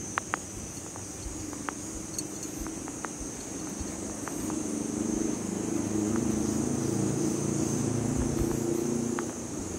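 Steady, high-pitched drone of an insect chorus, with a few faint, brief ticks. About halfway through, a louder low hum rises in, holds, and drops away just before the end.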